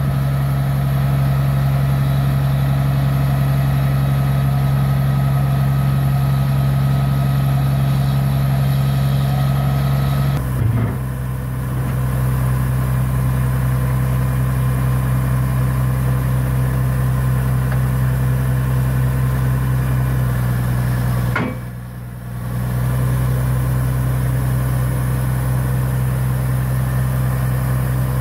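Water-well drilling rig's engine running steadily with a deep, even hum. It briefly dips twice, about ten and twenty-one seconds in.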